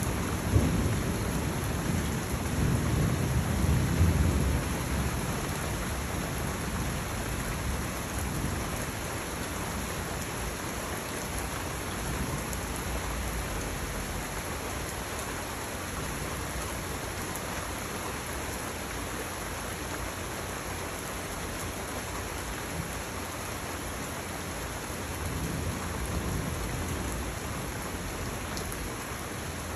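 Steady rain falling, with a rumble of thunder in the first few seconds that fades away, and a fainter rumble near the end.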